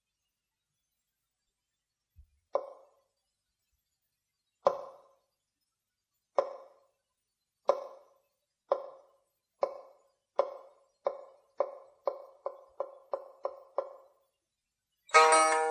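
Dry, woody percussive knocks played on a pipa, in the manner of a temple wooden fish. They start slowly, about two seconds apart, and speed up steadily to several a second. Near the end the plucked pipa strings enter with a ringing chord.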